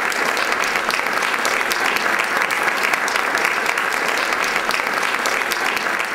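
Lecture audience applauding steadily, a dense crowd of hand claps.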